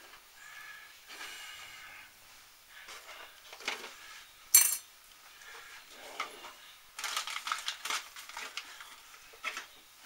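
Clock housing and small parts being handled and shifted on a workbench: scraping and clattering, with one sharp knock about halfway through and a run of quick rattling clicks near the end.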